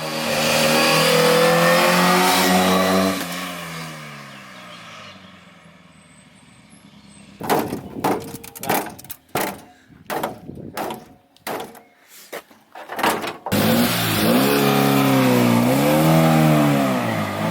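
Classic racing car engines at full throttle. One car runs loud at high revs, then passes and fades away with falling pitch; a run of short bursts of engine sound follows, each starting and stopping abruptly; then another engine comes in loud, its revs rising and falling several times.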